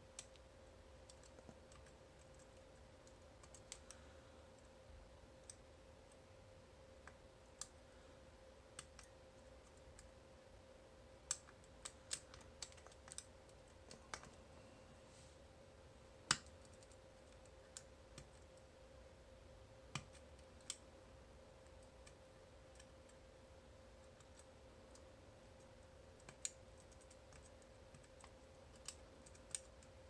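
Small, irregularly spaced clicks as the fingers of a tubular lock impressioning tool are pushed down against the pins of a tubular lock held under tension, single-pin picking it. There is a quick flurry of clicks about a third of the way in, and the loudest single click comes just past halfway.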